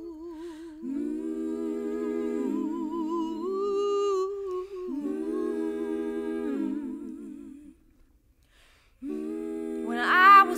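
Several women's voices humming wordless, sustained chords in close harmony, unaccompanied, each note held with vibrato. The voices stop for about a second near eight seconds in, then come back in, swelling louder near the end.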